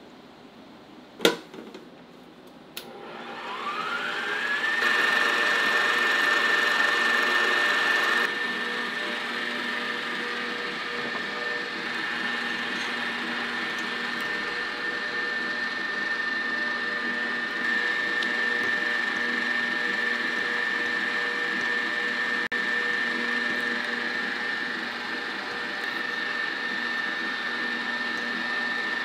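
A sharp click, then an electric kitchen mixer's motor starts, its whine rising over about two seconds as it spins up. It then runs steadily at one pitch, a little quieter from about eight seconds in.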